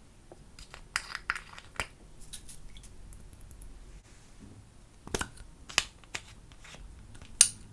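Small plastic makeup containers being handled: a cluster of sharp clicks as a glitter jar's lid is opened, then a few louder clicks and pops as the cap comes off a makeup stick tube, with the loudest single snap near the end.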